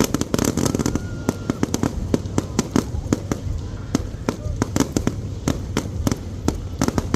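Aerial fireworks display going off in quick succession: many sharp bangs and crackles, some closely bunched, throughout.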